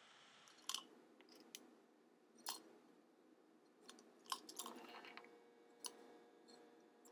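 Faint, scattered clicks and light knocks at irregular moments, as of small objects being handled.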